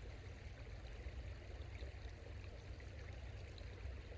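A small creek running steadily, with a low rumble underneath.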